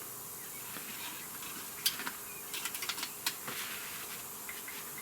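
Light, irregular clicks and taps of handling a plastic quart bottle of engine oil, with two sharper clicks about two and three seconds in, over a faint steady hiss.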